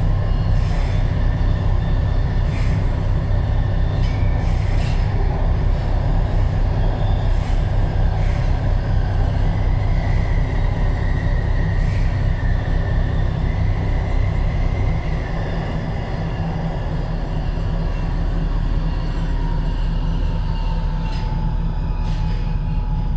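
Budapest M4 metro train running through a tunnel, heard from inside the front of the train: a steady heavy rumble of wheels on rail, with thin squealing tones from the wheels now and then. The rumble gets a little quieter about two thirds of the way through as the train nears a station.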